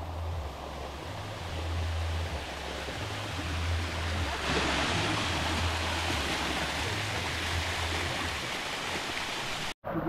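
Waterfall rushing: a steady hiss of falling water that grows louder about halfway through and cuts out for an instant near the end.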